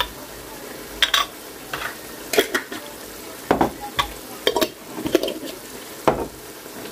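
Curry masala of onions and ground spices sizzling in oil in a metal pan. A wooden spatula stirs and scrapes against the pan in about a dozen irregular strokes.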